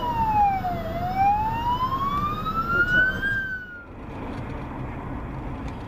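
Ambulance siren wailing: one slow sweep down and back up in pitch, cut off abruptly about three and a half seconds in. After the cut there is a steady hum of road and engine noise from a moving car.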